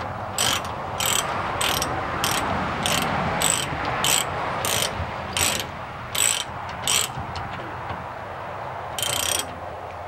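Ratchet tie-down strap being cranked, its pawl clicking with each stroke of the handle about every half second, then a short pause and one more stroke near the end. The strap is tightening to lift the load.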